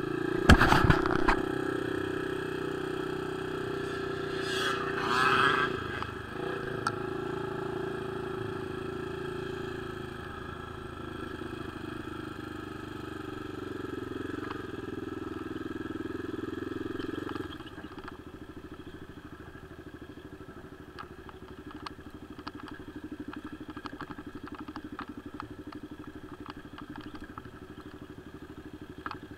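An ATV engine runs under throttle on a rough dirt trail. About half a second in there is a loud clatter of a knock. More than halfway through the engine eases off to a quieter, lighter running, with small knocks and clicks from the machine going over the rocky ground.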